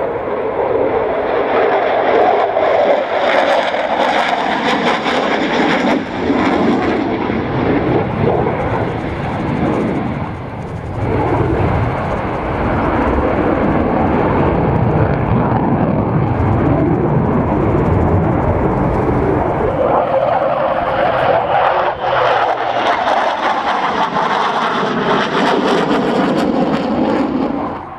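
Twin General Electric F404 turbofan engines of an F/A-18C Hornet fighter jet at high power through display manoeuvres: a loud, continuous jet roar that eases briefly partway through, then swells again, with slow sweeps up and down in pitch as the jet turns and passes.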